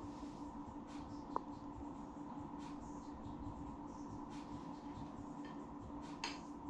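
Quiet room with a steady low hum, over which come faint scratching and light clicks, with one short high ping about a second and a half in.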